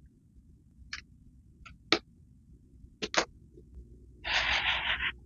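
A cardboard box being opened by hand: a few sharp clicks and taps as the seal sticker is slit with a hobby knife and the flap is worked loose, then about a second of cardboard scraping and rustling near the end as the flap opens.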